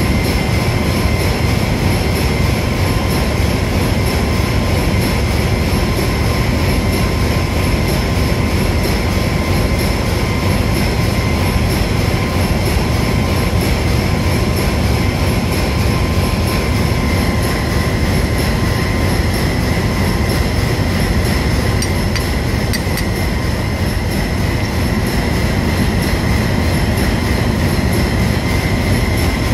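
Steady, loud machinery drone of a ship's engine room, with constant high-pitched tones running through it; no separate tool or hand sounds stand out.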